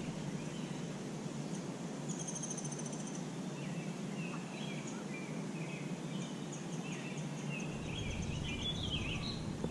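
Outdoor ambience: a steady low background noise with scattered faint bird chirps. A short high buzzy trill comes about two seconds in.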